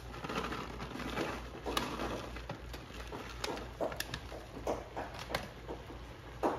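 Shredded cheddar being shaken from a plastic bag and spread by hand over macaroni in a skillet: irregular soft rustles, crinkles of the bag and light taps.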